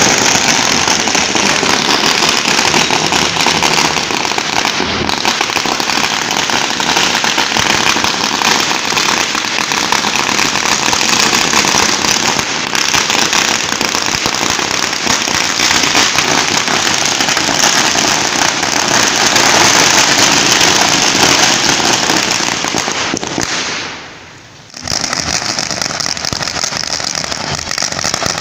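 A long chain of thousands of small 'mirchi' firecrackers going off in a dense, continuous rattle of sharp bangs. About three-quarters of the way through it drops away for under a second, then resumes just as dense.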